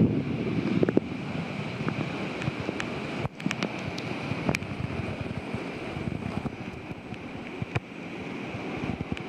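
The River Greta in flood, fast brown water rushing and churning around tree trunks in a steady roar, with wind buffeting the microphone. A few light clicks sound over it.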